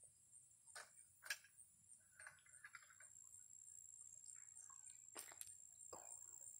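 Faint water splashes and drips as a Java (long-tailed) macaque paws at the water of a shallow plastic kiddie pool, with a few sharp drip or slap sounds at about one second in and again near the end. A steady, high-pitched pulsing tone runs underneath.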